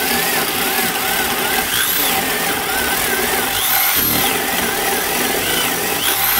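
Makita HP2040 corded hammer drill running in high gear with the hammer action off, boring through wood with a spade bit. The motor whine wavers up and down in pitch as the bit bites and loads the motor.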